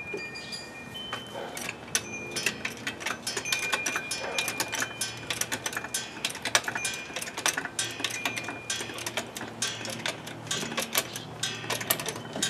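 Rapid, irregular metallic clicking and clinking as a jack raises the Jeep's rear axle, with a wind chime ringing faintly now and then.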